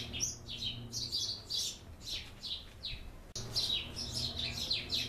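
Small birds chirping: a steady run of quick, falling chirps, several a second, over a faint low hum.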